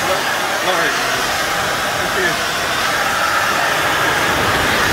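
Steady, loud rushing noise with faint voices underneath.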